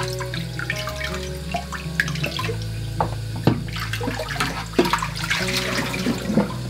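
Tap water running and splashing in a stainless steel kitchen sink as a ceramic bowl is rinsed under it, with a few sharp clinks of the bowl. Soft background music with sustained low notes plays underneath.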